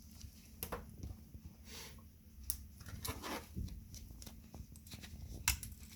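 Small sharp clicks and brief scraping as the glued plastic frame edge is pried and peeled off an iPhone 7 screen's glass, over a low steady hum.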